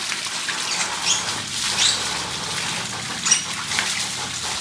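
Water from a shower hose splashing onto a wet husky's coat and the tiled floor, with several short high-pitched squeaks over the spray.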